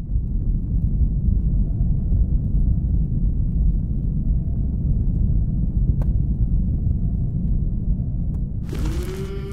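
Deep, steady cinematic rumble sound effect, fading in at the start, with a single sharp click about six seconds in. Music with a sustained, slightly gliding note comes in near the end.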